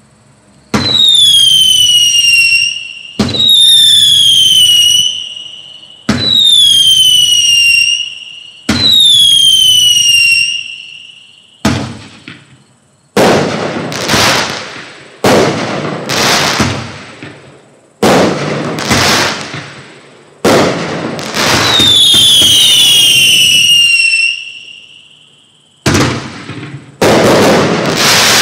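Black Cat Night Howler 15-shot fireworks cake firing shot after shot, every couple of seconds. The first four shots each carry a falling whistle, or howl, that fades over about two seconds; the middle shots break into loud crackling; and two overlapping whistles come again about two-thirds of the way through.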